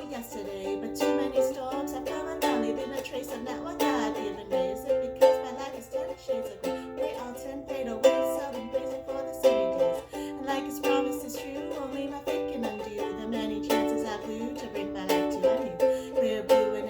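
Ukulele strummed in a steady rhythm, playing a sequence of chords with no voice over it.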